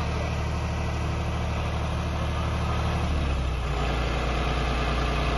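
Heavy diesel machine engine idling steadily, its note shifting slightly about three seconds in.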